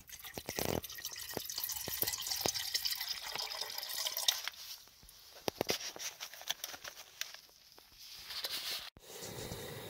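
Water poured from a bottle into a metal camping pot, splashing steadily for about four seconds, then a few drips and knocks as the pour ends. Near the end a steady hiss starts: a gas canister stove burning.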